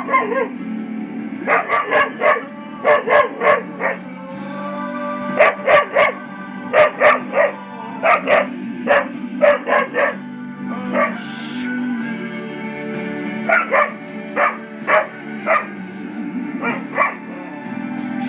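A dog barking at a cat in irregular runs of short, sharp barks, over steady background music.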